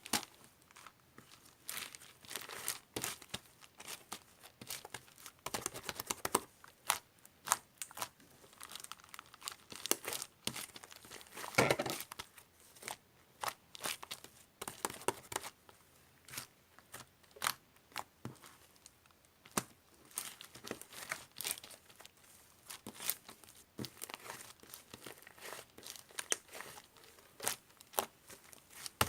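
Slime being squeezed and stretched by hand, giving irregular crackling, popping clicks, with a louder, longer squelch about twelve seconds in.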